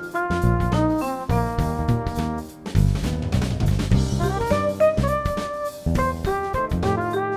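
Background music: an upbeat jazzy instrumental with a steady drum beat and melodic keyboard lines.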